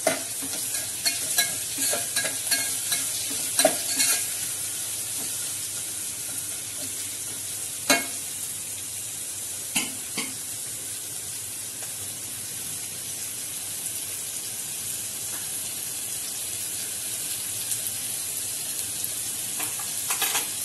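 Chopped onions frying in hot oil in a metal pot, a steady sizzle. A steel spoon stirring and clinking against the pot gives a run of sharp clicks in the first few seconds, and there are a few single knocks later.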